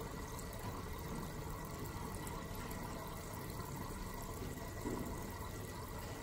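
Steady, quiet sound of running water, an even wash with no rhythm or breaks.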